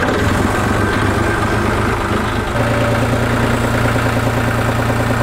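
John Deere 5065 tractor's diesel engine idling steadily, just after being started. About two and a half seconds in, its note shifts to a new steady pitch.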